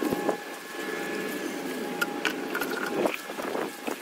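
Water spraying from a hose wand against a concrete wall, a steady hiss with a faint machine hum under it and a few light knocks.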